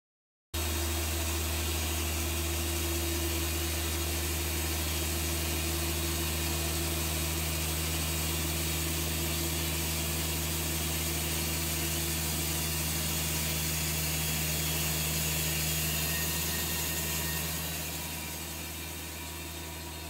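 Band sawmill running steadily: a constant low machine hum with hiss from the motor and the spinning band blade, starting abruptly and dropping somewhat in level near the end.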